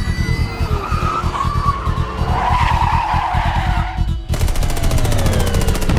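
Car tyres squealing and skidding over a pulsing low music beat. About four seconds in, rapid automatic gunfire breaks out.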